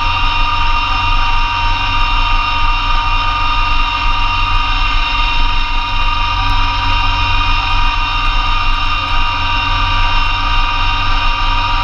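Massey Ferguson GC2300 compact tractor's diesel engine running steadily at a constant speed, with its PTO driving a Blizzard B48 snowblower. A mix of even tones and hum holds without change throughout.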